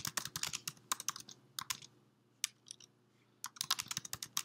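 Typing on a computer keyboard: quick runs of keystroke clicks, with a pause of about a second and a half midway before the typing resumes.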